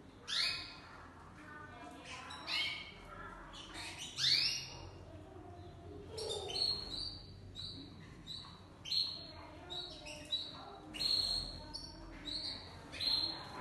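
Domestic canaries calling: short, high chirps repeated over and over, roughly one a second.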